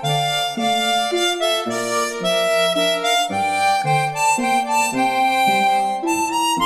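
Instrumental background music: a reedy melody over a plucked accompaniment, its notes changing every half second or so.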